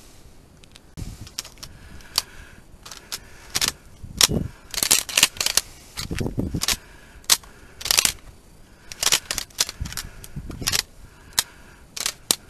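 Dry marsh reeds rustling and crackling against the microphone as it moves through them, in irregular bursts of sharp clicks with soft low thumps.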